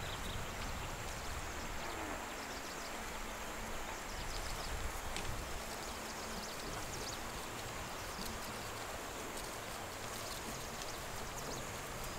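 Countryside outdoor ambience: a steady rushing noise with low rumble, with scattered faint high chirps and a thin high drone of insects or birds.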